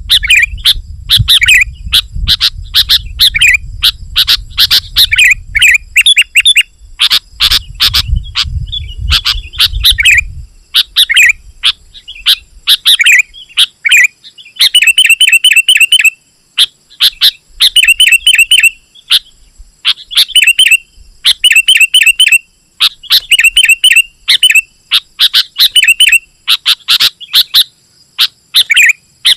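Sooty-headed bulbul (kutilang) calling rapidly and continuously in a dense run of short, bright chirping notes. From about halfway it repeats the same short phrase roughly once a second. A low rumble lies under the first third.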